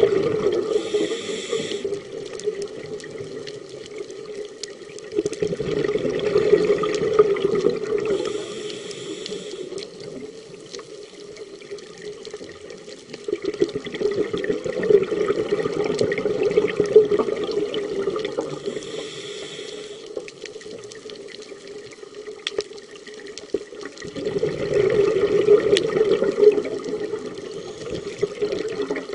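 Scuba diver breathing through a regulator underwater: about every ten seconds a long rush of exhaled bubbles, with a short hiss of inhalation between them.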